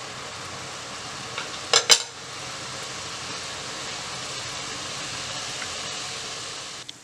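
Sliced onion sizzling steadily in olive oil in a clay pot, being softened over the heat, with two sharp clinks of the stirring spoon against the pot a little under two seconds in.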